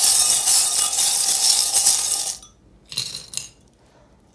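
A handful of small metal charms rattled together in a bowl: a loud, continuous jingling clatter that stops abruptly about two and a half seconds in, followed by two brief clinks.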